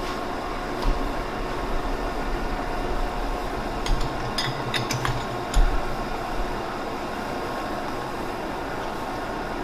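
Metal lathe running steadily in a machine shop, with a few sharp metallic clinks and low knocks in the middle, the loudest knock about five and a half seconds in.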